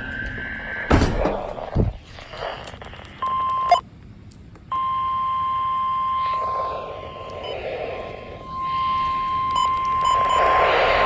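NOAA Weather Radio warning alarm tone from a weather radio receiver: a steady single high tone starts about three seconds in, breaks off for about a second, then holds on. A couple of sharp knocks come about a second in, and a rushing noise swells under the tone near the end.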